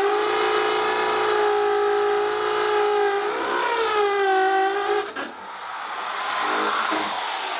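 Electric drill boring into a wooden stair tread: the motor runs with a steady whine, sags in pitch twice as the bit loads up in the wood, and cuts out after about five seconds, followed by a rougher hiss.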